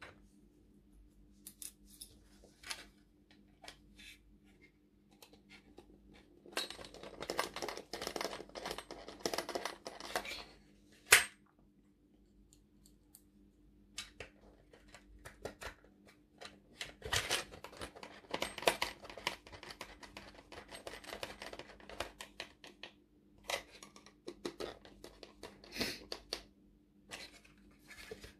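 Small screws and plastic kit parts being handled on a workbench, with a hex screwdriver turning screws: scattered clicks and stretches of rustling clatter, and one sharp, much louder click about eleven seconds in.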